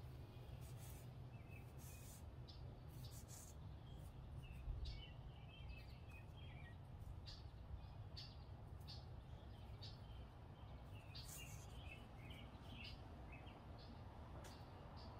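Quiet background with a steady low rumble, scattered faint bird chirps and light ticks and rustles from the rubber drive belt being handled. There is a soft knock about five seconds in.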